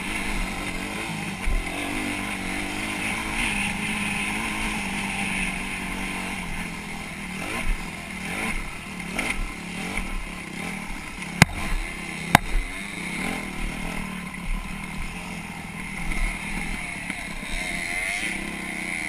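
Dirt bike engine running under way, heard close up from a camera mounted on the bike, its pitch rising and falling with the throttle. Two sharp knocks about a second apart come about midway.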